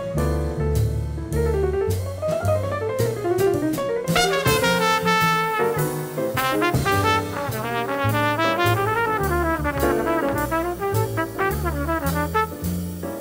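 Late-1950s jazz quintet recording: a piano line over walking double bass and brushed drum-kit cymbals, with a horn taking over the lead about four seconds in.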